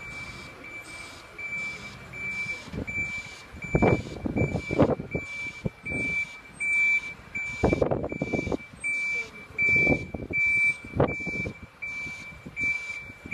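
An articulated lorry's reversing alarm beeping steadily, about two high beeps a second, as the lorry backs up. Several louder, short bursts of low rumbling noise break in now and then.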